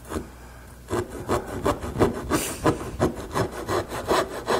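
Dovetail saw cutting into the edge of a wooden board with quick, short back-and-forth strokes, about five a second, starting about a second in. These are relief cuts at a hinge mortise layout line, made so the router bit won't chip out the edge.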